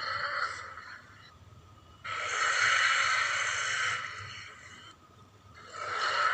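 Allosaurus sound effect: repeated hoarse, breathy roars, each about two seconds long. One fades out about a second in, the next runs from about two seconds to four and a half, and a third begins near the end.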